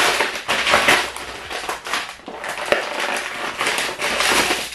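Stiff brown kraft-paper package rustling and crinkling as hands pull and tear it open, a continuous run of sharp crinkles.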